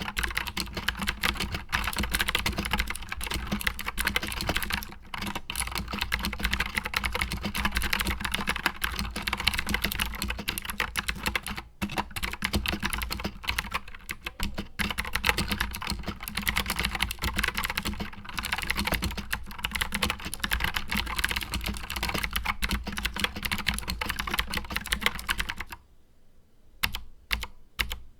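Fast, continuous typing on an Anne Pro 60% mechanical keyboard with clicky Gateron Blue switches and stock keycaps. The typing stops about two seconds before the end, leaving a few separate keystrokes.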